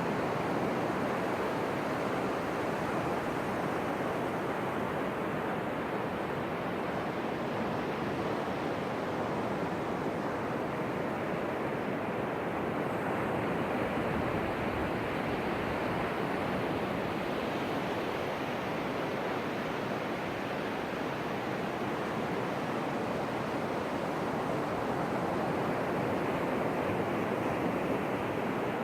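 Ocean surf: a steady wash of breaking waves with gentle swells in level as sets come in.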